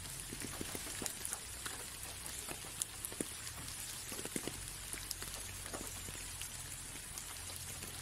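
Light rain on a window: a steady soft hiss with many small, irregular drop taps on the glass.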